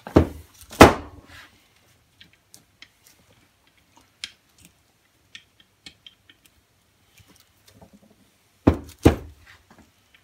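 Heavy knocks and light clicks from the parts of a dismantled three-jaw self-centering lathe chuck being handled: two loud knocks at the start, faint ticks in between, then two more loud knocks near the end.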